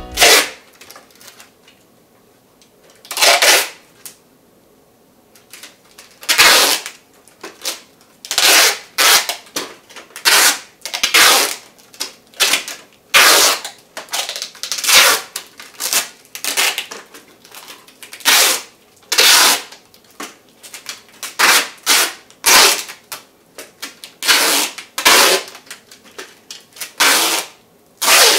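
Adhesive tape pulled off its roll in more than twenty short, loud, crackling rips, with quieter rustling between them, as the tape is wound around an object. The rips are sparse for the first few seconds and then come every second or so.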